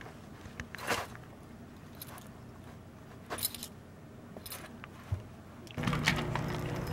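Soft rustling of fur on a cushion with light jingling of collar tags and a bell as a border terrier and a kitten play, in a few short bursts. About a second before the end a steady hum with sharp clicks comes in.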